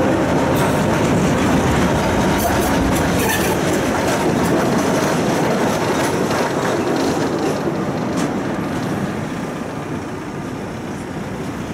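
Tram running along its rails, heard from on board: a steady rumble of wheels on track with scattered sharp clicks over the rails. It grows quieter from about three-quarters of the way in as the tram slows.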